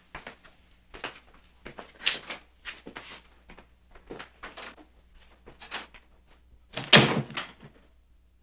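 Shuffling footsteps as several people leave a room, then a heavy wooden door slams shut about seven seconds in.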